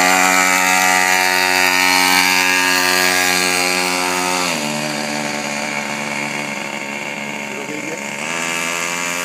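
Mini pocket bike's small engine running at high revs under throttle. The pitch drops about four and a half seconds in as the throttle eases, then climbs again near the end.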